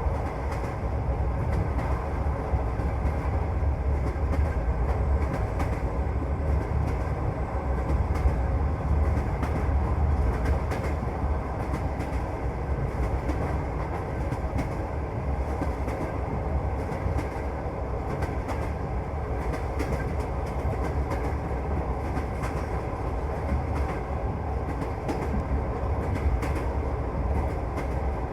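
Russian passenger train running along the line, heard from inside the carriage: a steady low rumble with the clatter of the wheels on the rails.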